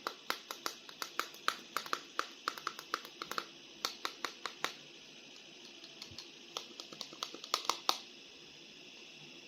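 Sharp plastic clicks and taps, irregular and several a second, from handling a plastic action figure and its packaging. They stop about eight seconds in, leaving a faint steady hiss.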